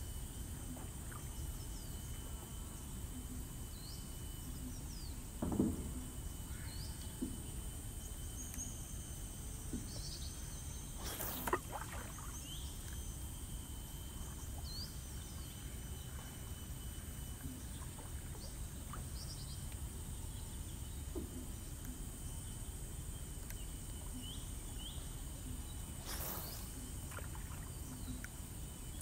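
Outdoor forest-lake ambience: a steady high insect drone with scattered short bird chirps over a low background rumble. There are three brief knocks, the loudest about five seconds in and the others near eleven and twenty-six seconds.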